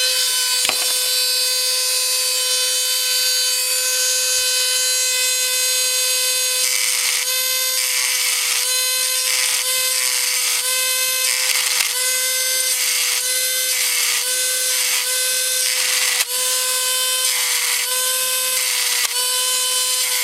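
Small high-speed rotary tool running steadily with a high whine, its bit drilling out the rivet of a die-cast toy truck's chassis. From about seven seconds in it dips briefly about once a second as the bit bites into the metal.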